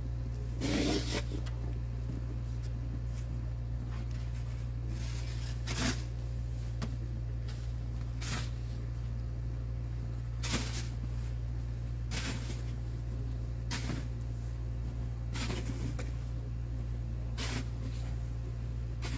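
Snow shovel scraping and scooping packed snow in separate strokes every second or two, over a steady low hum from a neighbouring car idling.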